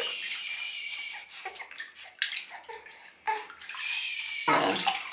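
Bathwater sloshing and trickling in a bathtub around a person and a newborn, with small splashes, and a brief voice sound near the end.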